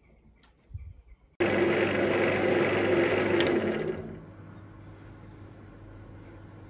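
Wood lathe turning a sycamore rolling pin blank: a turning tool cuts the spinning wood loudly from about a second and a half in for roughly two and a half seconds, then the lathe's motor hums on steadily without cutting. A single knock comes just before the cutting starts.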